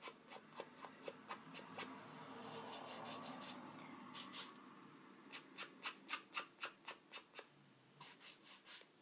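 Edges of small paper cards being rubbed and dabbed along a small ink pad to ink them: faint scraping, then a quick run of soft taps, about three a second, in the second half.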